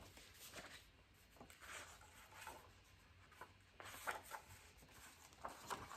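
Faint rustling of paper as picture-book pages are handled and turned, in a small quiet room.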